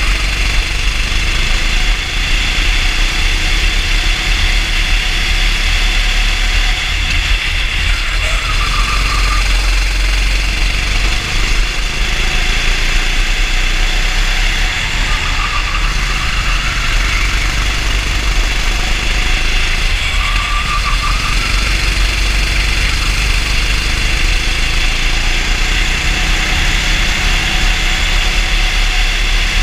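Racing kart engine running hard on track, recorded onboard: a loud, steady drone whose pitch sweeps up and down a few times as the revs change.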